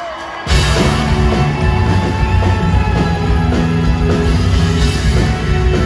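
A live rock-folk band kicks in loudly about half a second in, then plays on steadily with heavy bass and drums under guitar, banjo and keyboards.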